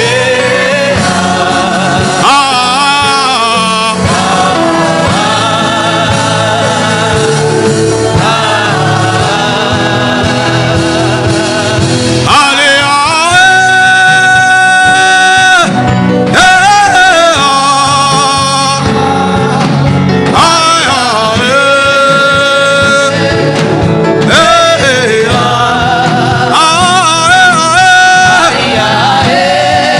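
Gospel music: singing with wavering, vibrato-laden notes over an instrumental backing, with long held notes about 13 seconds in and again about 21 seconds in.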